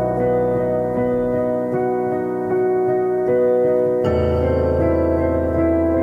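Background piano music: slow, sustained notes, with a deeper chord coming in about four seconds in.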